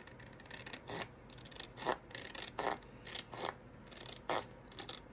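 Scissors cutting through a sheet of patterned paper, about five separate snips less than a second apart.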